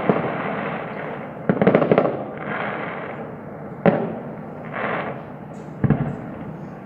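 Fireworks going off: a rapid volley of crackling reports about one and a half seconds in, then single sharp bangs near four and six seconds.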